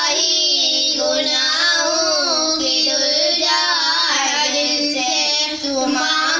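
Girls' voices singing an Urdu naat, a devotional hymn, in a continuous melodic line with wavering, ornamented pitch.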